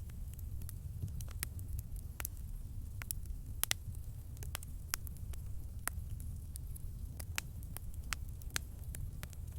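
Wood campfire crackling: sharp, irregular pops and snaps over a steady low rumble.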